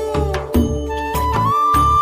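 Background music: a melody line that slides into long held notes over a steady, regular low beat.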